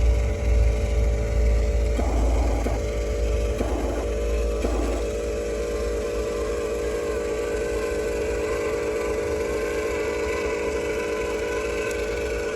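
Electric motors and gears of a radio-controlled toy construction vehicle whining steadily, with three short bursts of grinding gear noise in the first five seconds and a higher, wavering whine joining later.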